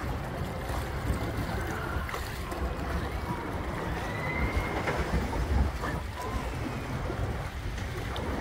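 Log flume boat moving along its water channel: steady rushing of water with wind rumbling on the microphone.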